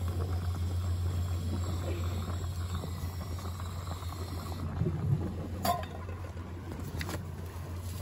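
Water boiling hard with prawns in a camping pot on a portable gas stove, under a steady low hum. Two sharp clinks come a little over a second apart in the second half.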